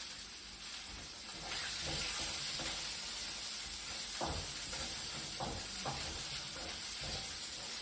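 Chopped onion frying in hot oil with the tempering, a steady sizzle that swells about a second and a half in as the onion goes into the pan. A few light knocks of the stirring spoon against the pan come later.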